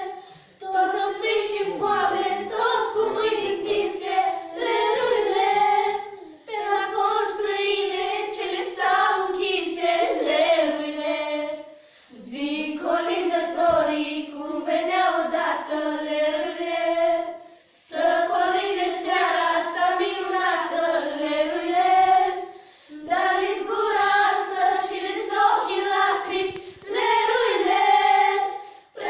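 A group of girls singing a traditional Romanian Christmas carol (colindă) together, unaccompanied, in phrases broken by short pauses for breath about every five or six seconds.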